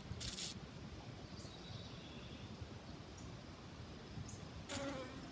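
Quiet pond-side ambience with a few short, high bird chirps spaced a second or more apart, and two brief rustling hisses, one just after the start and one near the end.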